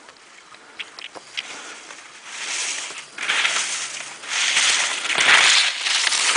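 Telemark skis carving through snow: a hiss that swells in about four surges, one per turn, getting louder as the skier comes closer. A few faint ticks come before the first turn.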